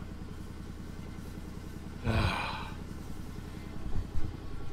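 Can-Am Defender HD10 side-by-side's V-twin engine running at steady low revs while driving through a bog. There is a brief rushing noise about two seconds in and a few low thumps near the end.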